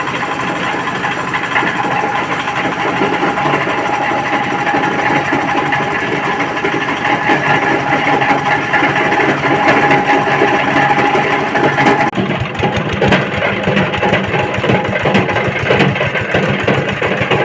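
Fabric-grinding (cloth shredding) machine running continuously with a dense mechanical rattle and a steady whine. About twelve seconds in the sound changes abruptly and turns rougher, with less hiss.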